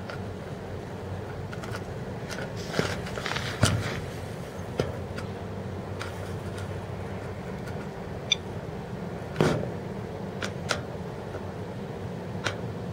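SOEKS Geiger counter clicking at irregular intervals, about eight sharp ticks in thirteen seconds: single particle detections at a normal background level. Under them runs a steady low hum.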